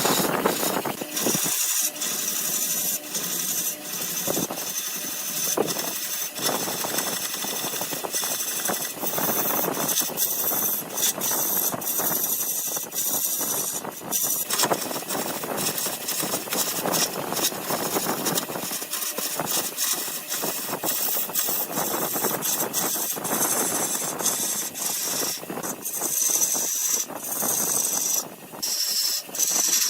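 Wood lathe running with a turning tool cutting the spinning wood: a continuous rough scraping noise over a thin steady whine.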